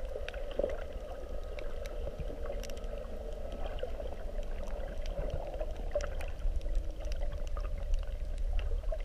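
Muffled underwater water noise picked up by a submerged camera: a steady low rumble with a hissing band above it and scattered faint clicks.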